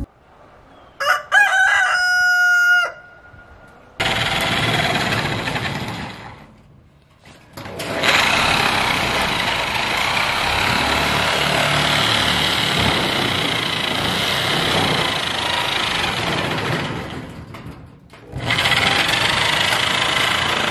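A rooster crows once, about a second in. Then power sheet-metal shears cut a steel siding panel: a steady, loud cutting run that breaks off briefly twice, about a third of the way through and near the end.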